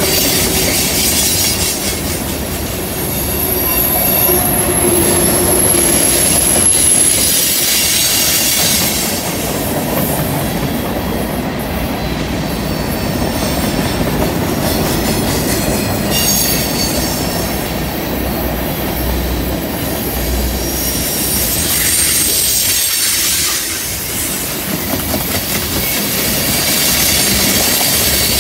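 Loaded tank cars and covered hoppers of a freight train rolling past on a curve: a steady heavy rumble of wheels on rail, with high-pitched wheel squeal from the curve, clearest from about 3 to 6 seconds in and again briefly around 22 seconds.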